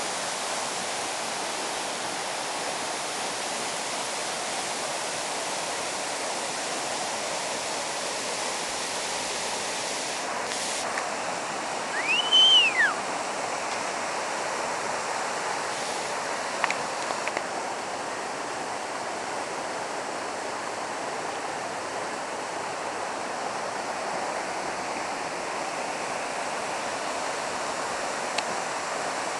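Waterfall: a steady rush of falling water. About halfway through, one brief high whistle rises and falls over it.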